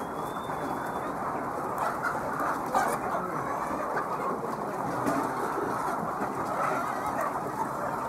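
A large flock of laying hens clucking and calling all at once in a dense, steady din.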